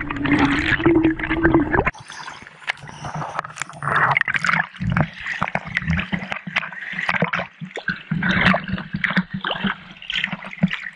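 A hand push net for shrimp being shoved through shallow seawater. For about the first two seconds the sound is heard underwater, a dense muffled rush with a low steady hum; then, above the surface, uneven splashing and sloshing as the net is pushed through the shallows.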